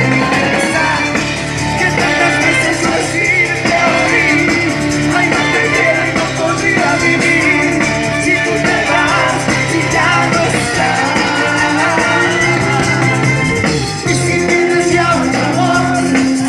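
Live band playing amplified music: electric bass, drum kit and guitar, loud and continuous, with a melody line over a steady bass. There is a brief dip in loudness near the end.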